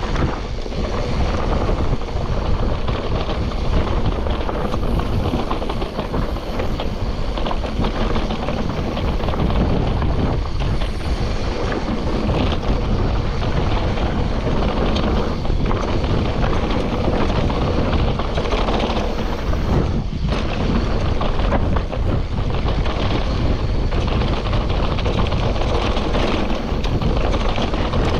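Mountain bike riding down a rough trail: steady wind rush on the microphone and tyre noise, with frequent small knocks and rattles from the bike over the ground.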